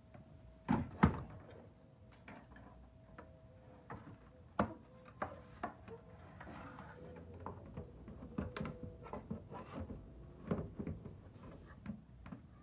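Knocks, clicks and scraping as the amplifier panel of a Harman Kardon HK595 subwoofer is worked loose and pulled out of its cabinet, with two loud knocks about a second in and a sharp one near the middle.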